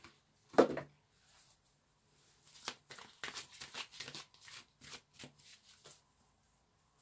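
A tarot deck, the Psychic Tarot for the Heart, shuffled by hand: a run of quick papery flicks and clicks of the cards. A single short knock comes about half a second in.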